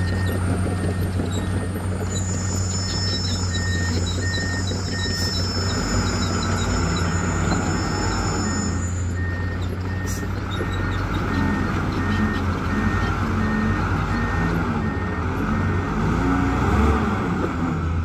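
Diesel dump truck engine running steadily while the raised tipper body empties its load of earth and the truck creeps forward, with a beeper repeating about twice a second. A high thin whine joins from about two to nine seconds in.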